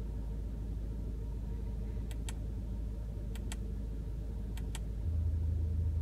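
2016 Audi TT's 2.0-litre turbocharged four-cylinder idling, with three pairs of light clicks from the drive select button. About five seconds in, the idle note steps up louder as Dynamic mode opens the exhaust valve.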